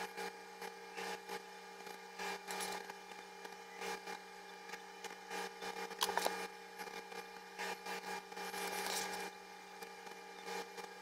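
A pen and a plastic set-square being worked over a journal page: scattered light taps, scrapes and pen scratches, the loudest about six seconds in, over a steady low hum.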